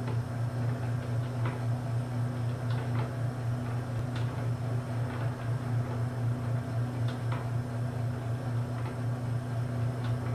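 Homemade wooden telescope-mirror grinding and polishing machine running: a steady electric-motor hum that pulses slightly, with occasional light ticks and clicks from the turntable and stroke-arm mechanism.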